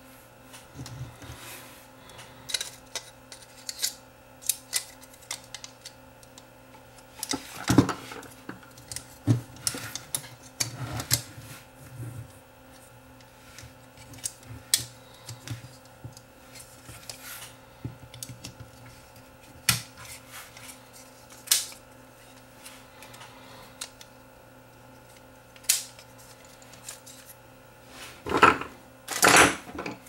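Plastic and metal parts of a cassette deck's tape mechanism clicking and clattering at irregular intervals as they are handled and fitted together by hand. There is a louder cluster of clatter about eight seconds in and another near the end.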